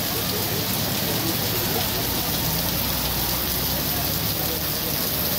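Heavy rain pouring down, a steady, dense hiss of rain falling on the street and nearby surfaces.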